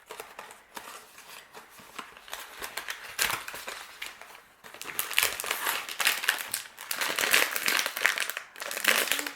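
Toy packaging crinkling and rustling as hands open a Disney Tsum Tsum mystery box, faint at first and louder and busier over the second half.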